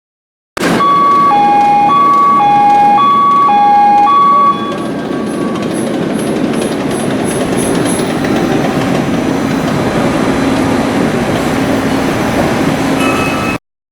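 A two-tone alarm alternates between a high and a lower note, each about half a second long, over the steady noise of an Akasaka AX31R marine diesel main engine. The alarm stops about four and a half seconds in, and the engine keeps running.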